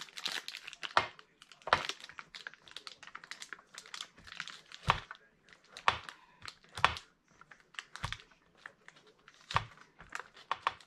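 Block of cheese being grated on a metal box grater: irregular scraping clicks with a few louder knocks, and the plastic wrapper around the cheese crinkling.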